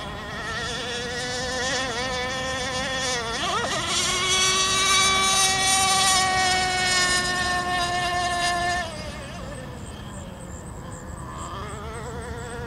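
CMB 91 nitro engine of an RC outrigger racing boat running at speed. Its pitch sweeps up about three and a half seconds in and it is loudest through the middle. About nine seconds in it drops off suddenly in loudness and falls in pitch as the boat moves away.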